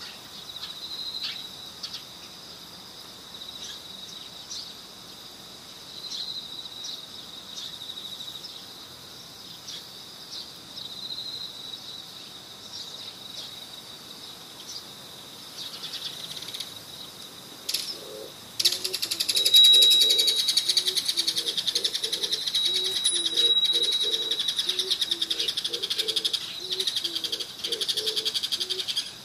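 Crickets trilling steadily at a high pitch, becoming much louder and more insistent about two-thirds of the way in.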